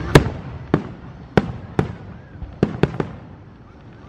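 Aerial fireworks shells bursting overhead: a string of sharp bangs, about seven in four seconds, the loudest right at the start and three in quick succession near the end.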